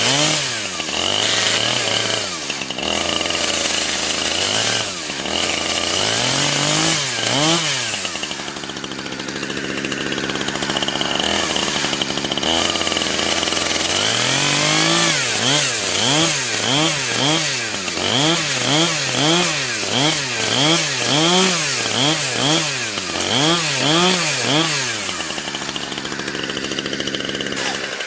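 Chainsaw cutting into a Samsung Galaxy S4 clamped in a vise, its engine revved up and dropped back over and over. In the second half the revs rise and fall about once a second.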